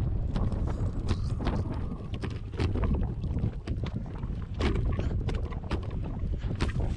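Strong wind buffeting the microphone in a steady low rumble, with irregular sharp clicks and knocks scattered through it.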